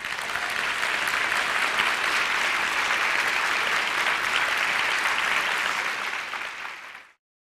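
A large audience applauding steadily, easing slightly before it cuts off abruptly near the end.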